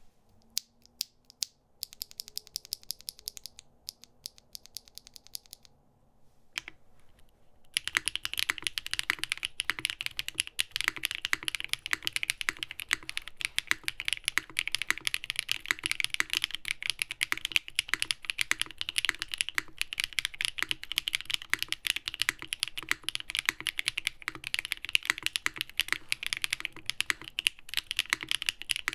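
Mechanical keyboard fitted with HMX Catmint linear switches (POM stems, nylon housings, 45 g springs) being typed on, with a bright, clacky sound. The first several seconds hold sparse, separate key presses, and steady fast typing starts about eight seconds in.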